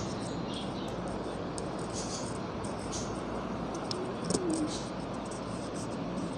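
Eggs with chopped green chilli and onion being beaten by hand in a plastic bowl: faint, irregular taps and scrapes of the utensil over a steady background hiss. A brief falling call sounds about four seconds in.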